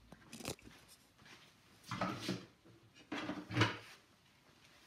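Quiet kitchen handling noises: a light click, then two short clatters about two and three and a half seconds in, the second as the lid is lifted off a Thermomix mixing bowl.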